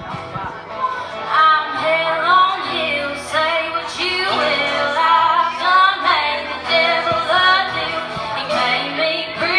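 A woman singing solo into a microphone, her voice gliding between long held notes.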